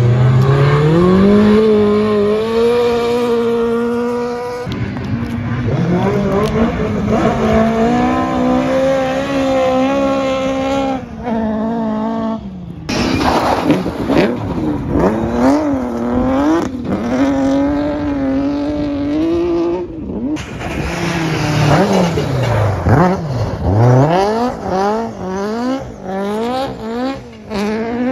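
Rally car engines revving hard and changing gear as the cars power through a corner, the pitch climbing, dropping and climbing again, with some tyre squeal. The sound breaks off abruptly twice and picks up again.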